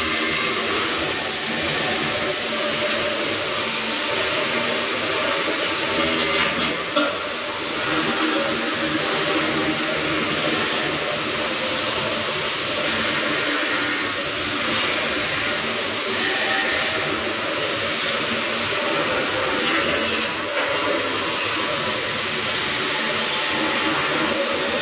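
Arc welding on a steel beam: a steady, loud hiss with a low hum underneath.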